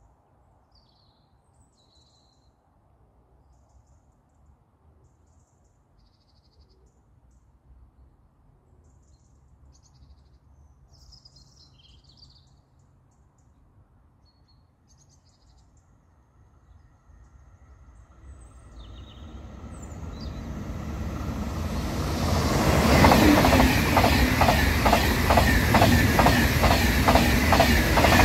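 Faint bird chirps over near quiet, then a train approaching and growing steadily louder over the last ten seconds. It passes close by with a rushing noise and an even, rapid clatter of wheels, about three beats a second.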